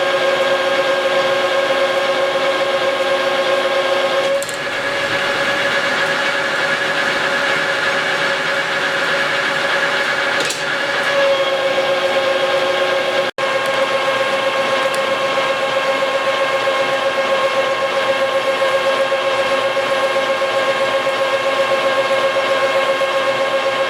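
Engine lathe taking a heavy roughing cut on a chipper drive shaft at a coarse feed, about 50 thousandths a side: a steady, high singing tone from the cutting tool with overtones above it. The tone shifts twice, about 4 and 11 seconds in, and drops out for an instant about 13 seconds in.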